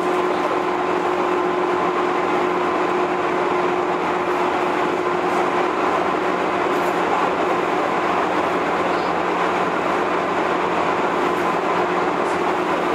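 JR 201 series electric train running steadily between stations, heard from inside the carriage: an even rumble of wheels and motors with a steady whining tone over it.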